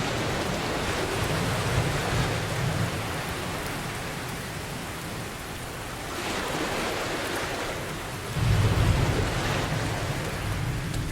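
Steady rain, with deep rolling thunder rumbles, one near the start and a stronger one swelling up about eight and a half seconds in. Ocean waves wash under the rain.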